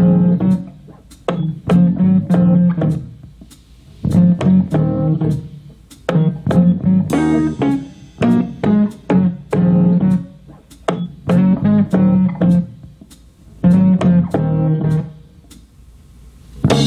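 Instrumental music with a plucked bass-guitar riff, played through Morel Hybrid 42 car-audio speakers in test enclosures. Short phrases of staccato notes alternate with brief gaps, and a fuller section begins near the end.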